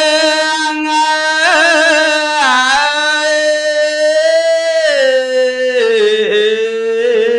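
A single voice chanting a Khmer verse in a slow, ornamented melody, unaccompanied: long held notes broken by wavering turns and short downward glides. The pitch steps down about five seconds in.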